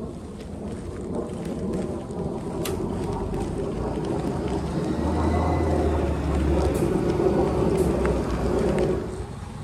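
City bus driving past on the road, its engine rumble building over several seconds and dropping off sharply near the end.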